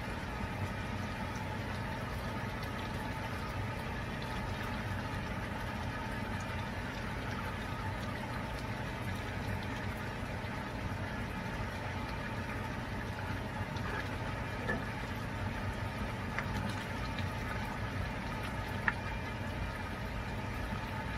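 Pork adobo braising sauce simmering with boiled eggs in a frying pan, a steady bubbling over a constant low hum. There is a faint tick about two-thirds of the way through and another near the end.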